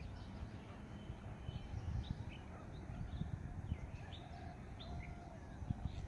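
Birds chirping in the morning: many short calls scattered through, over a low irregular rumble.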